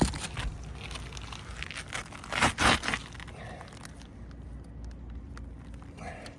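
Scraping and crunching on gritty asphalt roof shingles, with a sharp knock at the start and a short cluster of rough scrapes about two and a half seconds in.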